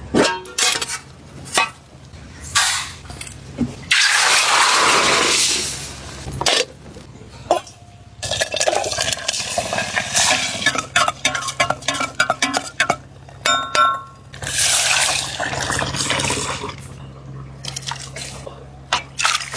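Pots, dishes and utensils clinking and clattering as food is prepared. There are two longer stretches of water being poured or running, about four seconds in and again near fifteen seconds.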